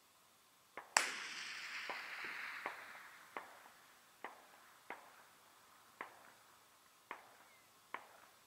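A single distant rifle shot from a 6.5 Creedmoor about a second in: one sharp crack followed by a long rolling echo that fades over about three seconds. Faint short clicks follow roughly once a second.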